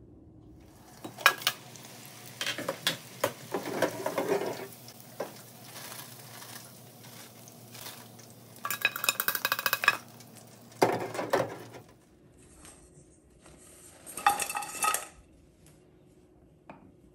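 Metal kitchenware and utensils clinking and clattering in several separate bouts, with some sizzling from freshly fried food. A faint low steady hum runs underneath and stops about two-thirds of the way through.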